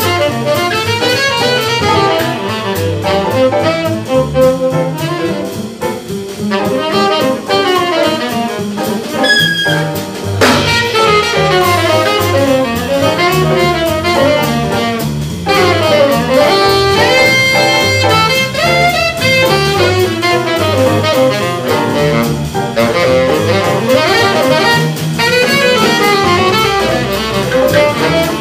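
Jazz quartet playing live: tenor saxophone leading over piano, double bass and drum kit.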